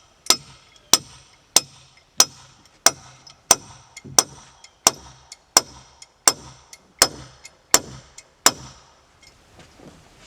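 Hammer blows on wood framing, about thirteen even strikes at roughly one and a half a second, stopping about eight and a half seconds in.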